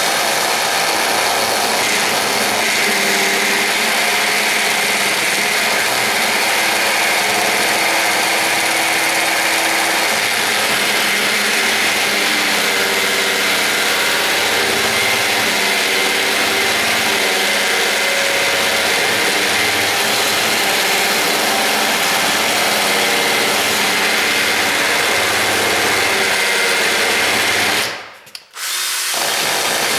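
Power drill running steadily, its bit cutting into the wooden door jamb to enlarge the strike plate opening. It stops for about a second near the end and then starts again.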